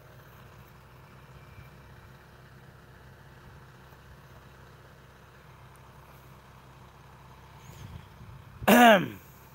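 Faint, steady drone of an engine running. Near the end comes one loud, brief sound that falls in pitch.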